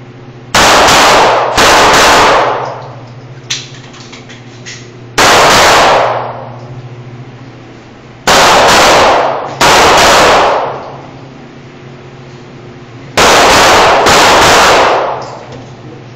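Gen 4 Glock 17 9mm pistol firing in seven loud groups, mostly quick pairs, with pauses of a second to a few seconds between them. Each shot rings on in the small rooms of an indoor shoothouse and is loud enough to overload the recording.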